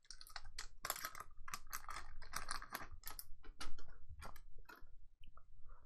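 Foil wrapper of a Topps Chrome trading card pack crinkling as it is torn open and the cards are pulled out: a dense run of crackles that thins out about five seconds in.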